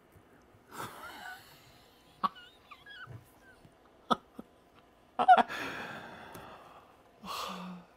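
A man laughing hard and breathlessly, in wheezy, gasping bursts. The loudest burst comes about five seconds in and trails off, and a few sharp clicks fall between the bursts.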